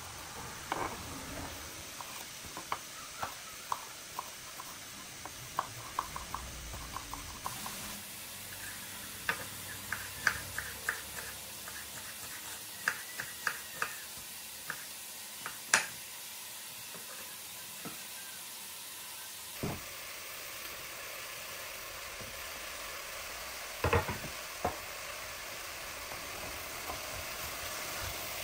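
Kitchen knife chopping a green pepper on a wooden cutting board: a run of sharp taps, slow at first, then in quick bursts. About two-thirds of the way in, diced vegetables sizzling in a steel pot while a wooden spoon stirs them, with a few knocks of the spoon.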